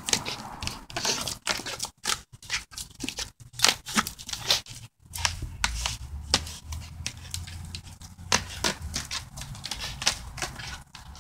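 Dog hanging from and tugging on a frayed, knotted rope in its jaws: irregular crackling, tearing and snapping sounds from the rope as it is chewed and strained.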